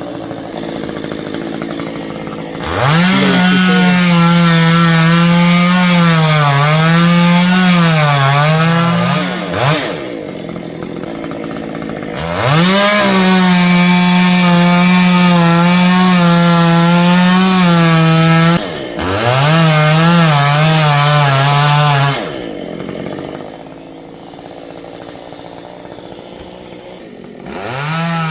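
Stihl two-stroke chainsaw run at full throttle in several long cuts, its pitch dipping and wavering as the chain loads up in the wood, falling back to idle between cuts and revving up again near the end.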